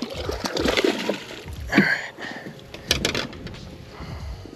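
Water splashing and sloshing beside a small skiff as a hooked redfish is brought in by hand, with a few sharp knocks against the boat about three seconds in. A brief high squeak just before two seconds in is the loudest moment.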